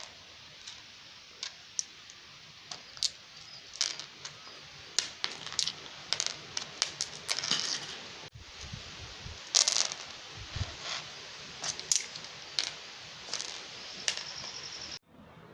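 Small stones clicking and clacking against one another and the floor in quick, irregular taps, as they are tossed up, caught and scooped in the five-stones game (kal vilayattu).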